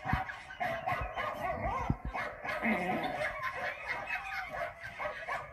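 A dog whining and yipping in short calls that bend up and down, with a few low thumps.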